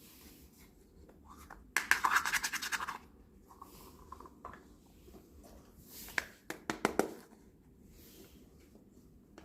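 Quick, rapid scraping on miniature toy kitchenware for about a second, starting about two seconds in, followed by a few sharp clicks a few seconds later.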